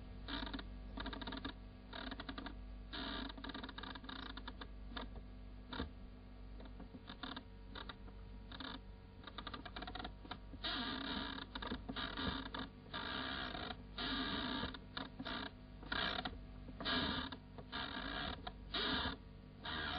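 Irregular rattling clicks, like a typewriter clattering, over a steady electrical hum. The clatter grows denser and louder about halfway through.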